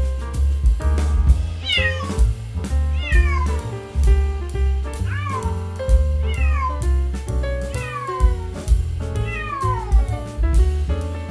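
Kittens meowing repeatedly, about six high calls that each fall in pitch, over background music with a steady bass line.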